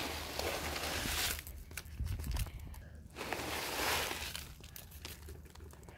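Loose soil and sand being scooped and tipped out with a plastic dish, a gritty rustling pour, twice: for about the first second and again from about three seconds in.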